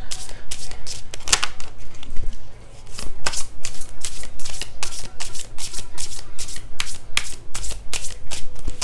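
Oracle card deck being shuffled by hand: a quick run of papery card slaps, several a second, with a brief pause about two and a half seconds in.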